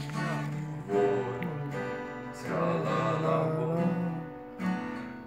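Acoustic guitar strummed in chords, with a man's voice singing along.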